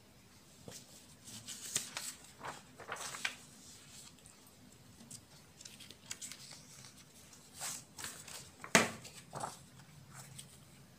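Sheets of paper rustling and being handled as a written page is turned over for a blank one, in a string of short rustles. Near the end comes one sharp tap.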